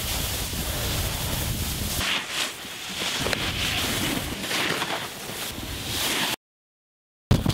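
Wind rushing over the microphone and the hiss of a snowboard sliding and carving through snow, coming in swells. The sound cuts off abruptly about six seconds in and comes back with a sudden burst near the end.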